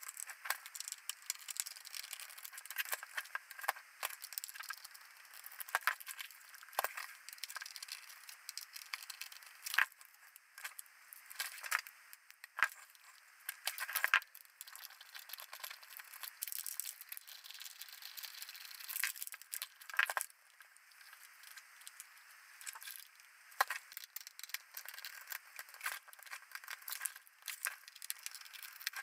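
Irregular small clicks, scrapes and rattles as screws are undone with a precision screwdriver and the plastic parts of a Canon Epoca camera are handled and pulled apart; a few louder clicks stand out.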